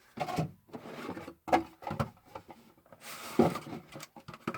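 Cardboard and paper being handled as a Pokémon card box is unpacked: a series of short rustles, slides and light knocks, with a longer rustle a little after three seconds in.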